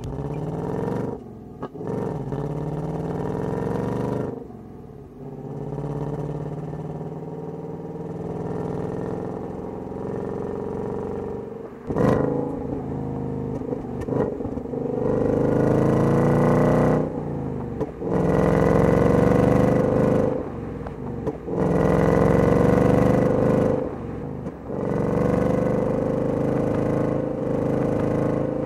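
2024 Ford Mustang GT's 5.0-litre Coyote V8 exhaust while driving, the note rising in pitch through repeated pulls under acceleration. It comes in short stretches that cut abruptly from one to the next every few seconds.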